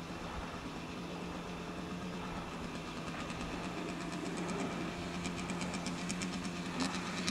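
Engine of a GasGas TXT Boy youth trials motorcycle running at a steady low pitch, getting gradually louder as the bike comes closer. A rapid ticking joins it from about halfway.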